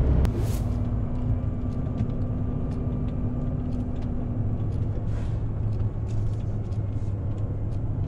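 Semi-truck's diesel engine running with a steady low rumble. A short hiss comes about half a second in and again about five seconds in, with scattered faint ticks over the engine.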